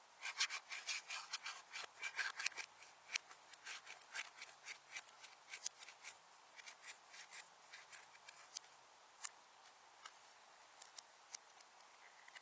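Slime being squeezed and kneaded by hand, giving a run of sharp sticky clicks and pops. They come thick and fast at first and thin out toward the end.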